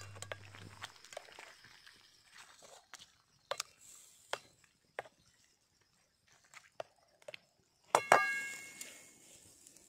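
Wooden spoon stirring chicken in a steel karahi: scattered knocks and scrapes of the spoon against the pan, then about eight seconds in a louder knock that sets the metal pan ringing briefly.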